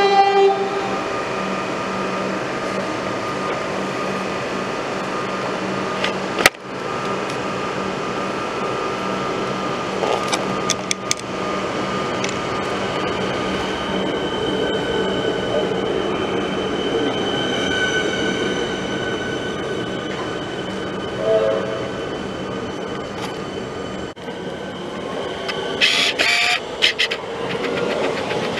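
Melbourne Metro suburban electric trains running through station platforms: a continuous rumble of wheels and traction motors, with high squealing near the end.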